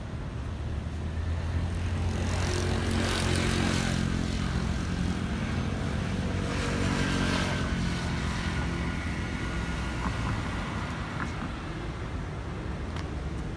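Road traffic going by: engine hum and tyre noise from passing vehicles. It swells as a couple of vehicles pass a few seconds in, then eases off toward the end.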